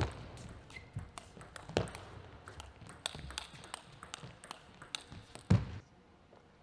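Table tennis rally: the ball clicking off the rackets and the table in quick irregular exchanges, with a brief shoe squeak about a second in. It ends with a short loud burst at about five and a half seconds, when the point is won.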